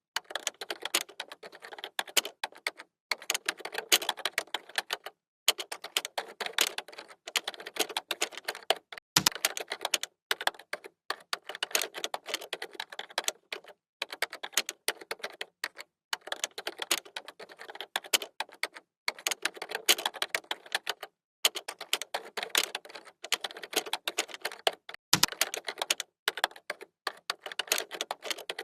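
Fast typing on a computer keyboard: dense runs of clicking keystrokes broken by brief pauses every few seconds, with a deeper knock twice.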